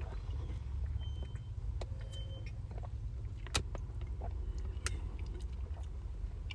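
Low, steady rumble of a car engine idling, heard from inside the cabin, with scattered small clicks and taps; the sharpest click comes about three and a half seconds in.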